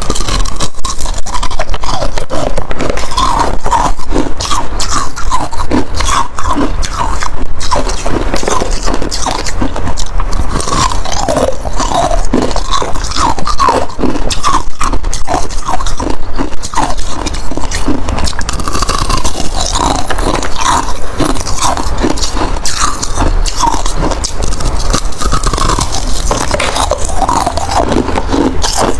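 Close-miked crunching of ice being bitten and chewed, a loud, continuous run of rapid, sharp crunches.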